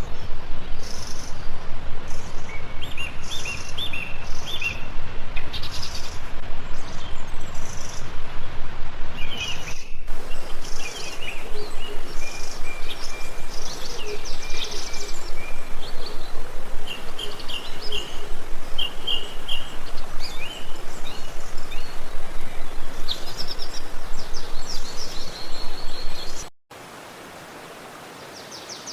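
Small birds chirping and twittering over a steady rush of flowing water. Near the end the water sound cuts off abruptly, leaving fainter birdsong.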